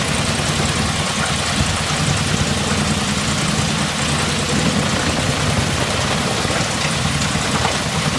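A heavy engine running steadily at a constant speed, with a low, even pulsing drone.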